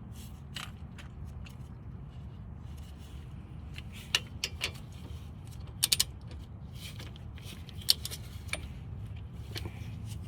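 Hand tools and metal brake parts being handled, with scattered sharp metallic clicks and clinks over a steady low hum.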